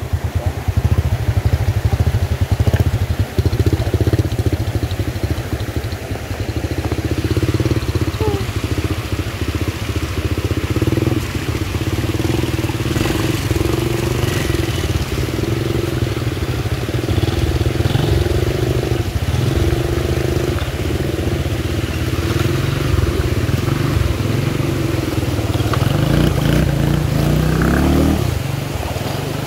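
Vehicle engine running steadily under a heavy, gusting low rumble of wind on the microphone. A steady hum stops shortly before the end.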